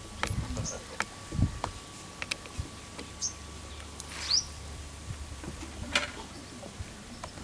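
Bajjis frying in hot oil in an iron kadai: a steady sizzle with scattered crackles. A bird chirps three times, short rising calls.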